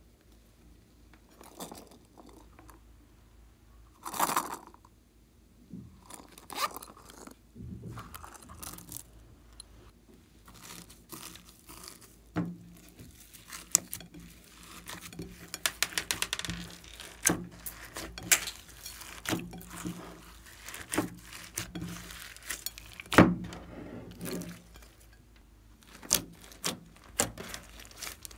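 Hands mixing and stretching glossy slime loaded with glitter, sequins and plastic beads: a run of wet clicks, crackles and crunches, with one loud pop a little past two-thirds through.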